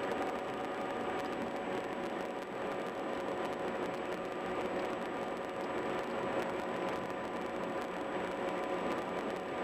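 Car driving at highway speed: steady tyre and road noise with a faint hum, even throughout.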